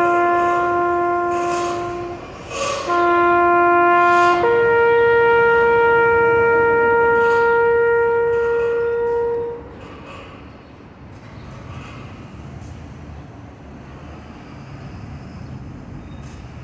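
Bugle call held in long steady notes. One note ends about two seconds in and, after a short break, is sounded again. The bugle then steps up to a higher note held for about five seconds, which stops near the ten-second mark. After that only steady city street noise remains.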